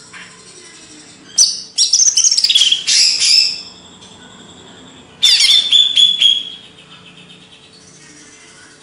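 Cucak ijo (green leafbird) singing two loud bursts of rapid, varied whistled notes that slide up and down. The first burst starts about a second and a half in and lasts about two seconds; the second starts about five seconds in and is shorter.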